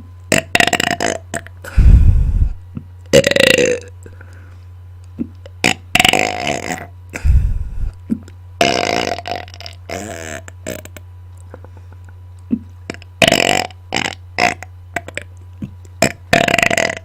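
A person belching on command in a rapid string of about ten loud burps a second or so apart, some of them deep. A steady low hum runs underneath.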